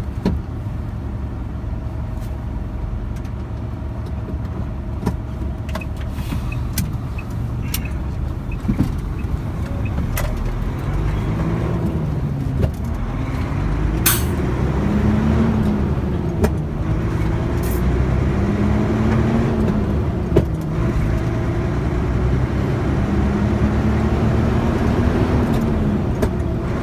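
Truck engine and 13-speed Eaton Fuller Roadranger gearbox heard from inside the cab while driving. After a steady stretch, the engine note climbs and then drops four times as the truck is taken up through the gears, double-clutched. Sharp clicks come as the gear stick is knocked out and into gear.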